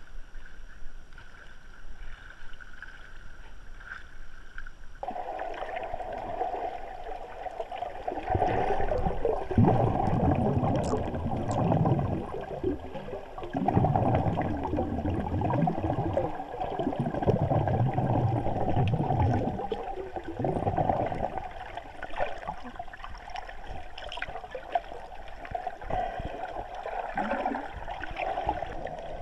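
Water sloshing and gurgling around a GoPro camera held at the sea surface. About five seconds in it turns muffled and uneven, as the camera goes under and water churns around its housing.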